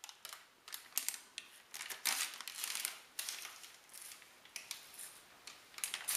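Crinkling and rustling of MRE packaging handled by hand, the heated black foil entree pouch being gripped and turned. Irregular crackles and short rustles, loudest about two seconds in and again right at the end.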